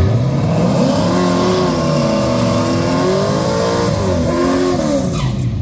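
1967 Camaro drag car's engine revving hard through a burnout, its rear tyres spinning. The revs climb over the first second or two, hold high, dip briefly around four seconds in, rise once more and fall away near the end.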